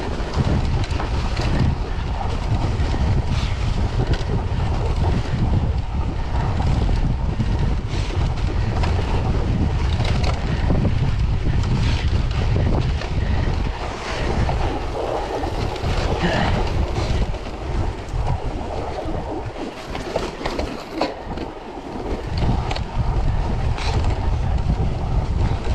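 Wind buffeting the microphone of a camera on a cyclocross bike ridden over packed snow, a steady rumbling rush mixed with scattered knocks and rattles from the bike and tyres. The low rumble eases for a few seconds about twenty seconds in.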